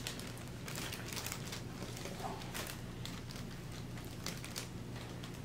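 Faint, scattered crinkling of foil (mylar) balloons being handled and pressed against a face, over a steady low hum.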